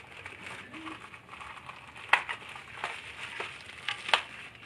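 Clear plastic parts bag crinkling and crackling as it is handled and opened, with a few sharp crackles, the loudest about two seconds in and another near the end.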